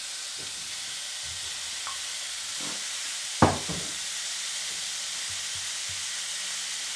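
Strips of beef frying in a hot wok on a gas hob: a steady sizzle while they are stirred, with one sharp knock about three and a half seconds in.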